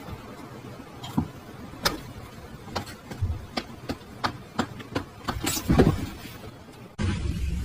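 Irregular sharp clicks and knocks, a few a second, growing louder and closer together; music cuts in abruptly near the end.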